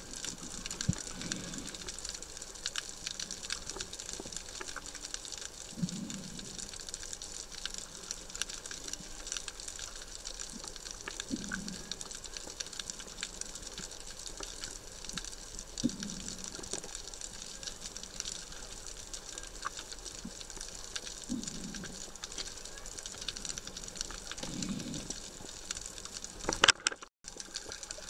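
Underwater ambience heard through a submerged camera: a steady hiss with a dense crackle of fine clicks, and a soft low whoosh every five seconds or so. A single sharp knock near the end is followed by a brief dropout.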